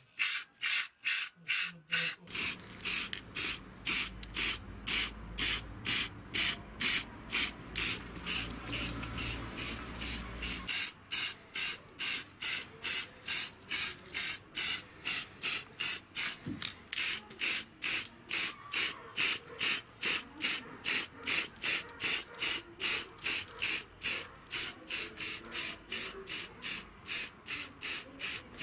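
Paint being sprayed onto metal vise parts in short hissing bursts, about two a second, in a steady rhythm. A low hum runs underneath and stops about ten seconds in.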